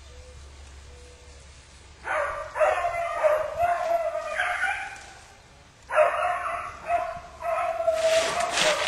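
A pack of hunting beagles baying as they run a rabbit's line: drawn-out hound voices start about two seconds in, drop away briefly, then take up again about six seconds in, with a rustling hiss under them near the end.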